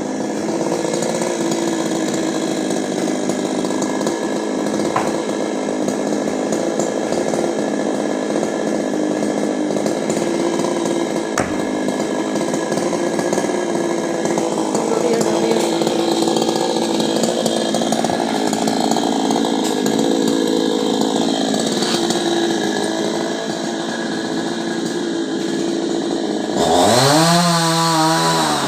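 Chainsaw engine running steadily at speed. Near the end it gets louder and its pitch swings down and back up as the throttle changes.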